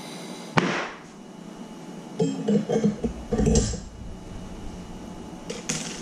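A soldering torch's flame cut off with a sharp pop about half a second in, ending its steady hiss, followed by a run of knocks and clatter as the torch and hose are set down on the bench, and a short click near the end.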